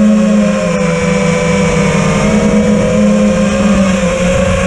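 A 5-inch FPV racing quadcopter's brushless motors (2207, 1800KV) and propellers buzzing loudly and steadily, heard close up from the camera mounted on the drone.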